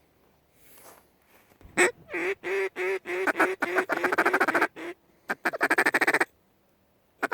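A mallard duck call blown hard in a hunter's hail-and-feed pattern: a run of loud, evenly pitched quacks that speeds into fast chattering, a short pause, then a second burst of rapid chatter.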